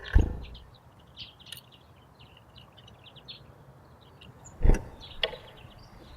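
Small garden birds chirping with many short high calls, with two loud knocks close to the microphone, one at the start and one near the end, typical of birds landing or pecking on the feeder.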